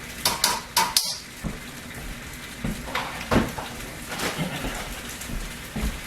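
A cooking utensil clinking and knocking against a pan as food is stirred. There is a quick run of sharp clicks in the first second, then scattered knocks over a faint steady sizzle.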